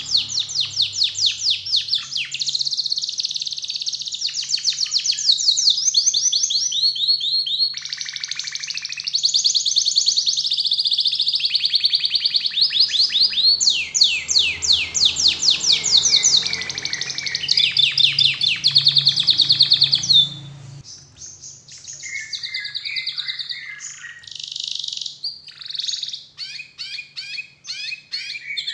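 Domestic canary singing: long runs of fast, high trills of repeated notes, one rolling straight into the next. About twenty seconds in the song turns quieter and choppier, with short phrases and gaps.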